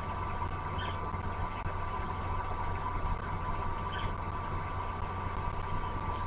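Steady hum and hiss with a constant tone, the noise floor of an outdoor camera microphone. Two faint short high chirps come about a second in and again near four seconds.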